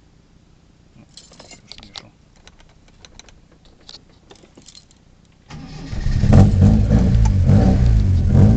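Faint clicks and rattles, then about five and a half seconds in a brief crank, and the Lotus Elite S1's twin-cam four-cylinder engine on twin 45 Dellorto carburettors catches on a cold start without choke. It runs loud and revving through straight-through twin exhausts.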